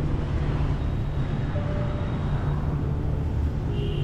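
City street traffic: a steady low rumble of engines and tyres, with a couple of short faint tones, about a second and a half in and again near the end.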